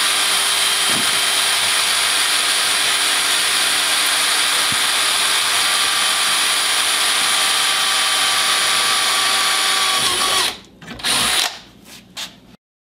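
Porter-Cable cordless drill running steadily, drilling into a workpiece clamped in a bench vise. The motor stops about ten and a half seconds in, followed by two short bursts before it cuts off.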